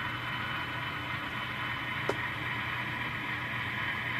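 N scale Tier 4 GEVO model locomotive creeping at speed step two: a steady hiss with a low hum, and one short click about two seconds in.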